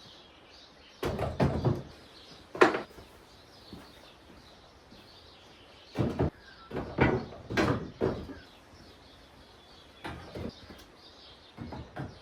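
Tools and gear being handled, with clusters of knocks and clunks a few seconds apart and a sharper knock about three seconds in.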